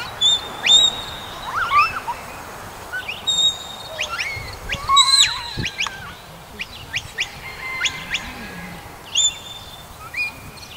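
Birds chirping and calling: many short, quick high chirps and sweeps overlapping throughout, with a few brief flat whistled notes.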